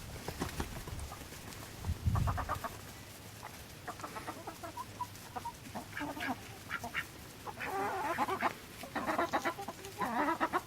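Chickens clucking in short calls, coming in quick runs that grow busier in the second half.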